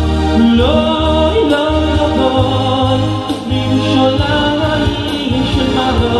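A male singer sings a Jewish song live through a PA, over a Korg keyboard accompaniment with a steady, heavy bass line.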